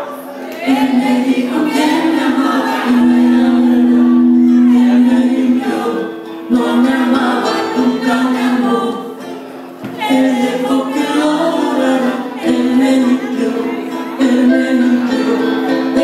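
A ballad with a strong lead vocal holding long notes over backing music, played loudly in a large hall.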